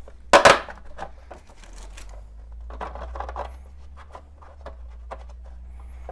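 Hard plastic knocks and small clicks as 12-volt accessory sockets are pushed through holes in a plastic dash panel, with one sharp knock about half a second in, over a faint low hum.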